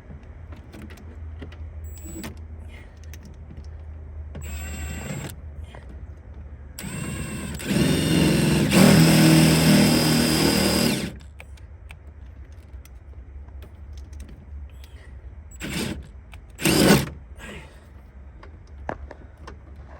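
Pickup truck engine running steadily, with a louder stretch of about three and a half seconds partway through and two short louder sounds near the end.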